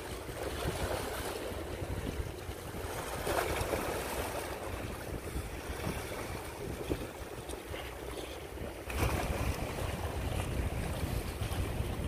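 Wind buffeting the microphone over small waves lapping against a rocky seawall. The wind rumble gets heavier about nine seconds in.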